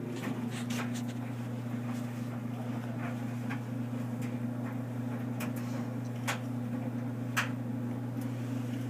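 A steady low mechanical hum with a second, higher steady tone starting at the outset, and a few faint sharp clicks.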